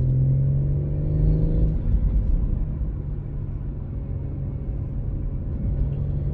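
BMW M140i's turbocharged 3.0-litre straight-six, fitted with an MST aftermarket intake, pulling under acceleration with a rising note. It eases off a little before two seconds in and runs on at a steady, lower note.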